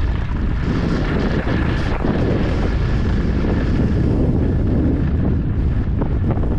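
Rushing wind buffeting the camera microphone as a skier runs fast down a groomed slope, with the skis hissing over the packed snow underneath.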